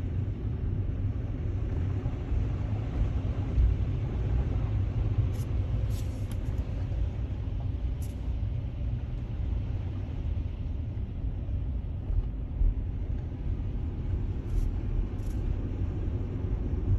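Car driving through flood water, heard from inside: a steady low rumble, with a few short high hisses about five to eight seconds in and twice near the end.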